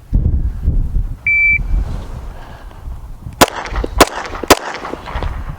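A shot timer gives one short beep, then a Smith & Wesson M&P 2.0 pistol fires three shots about half a second apart.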